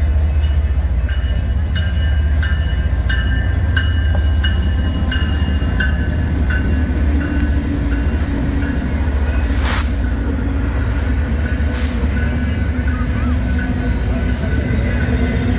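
A train passing with a steady heavy low rumble and short, high-pitched metallic squeals repeating through the first half. There is a brief hiss about ten seconds in.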